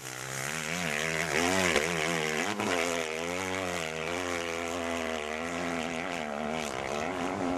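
Engine of a Honda 250 four-stroke dirt bike being ridden, its pitch rising and falling again and again as the rider works the throttle.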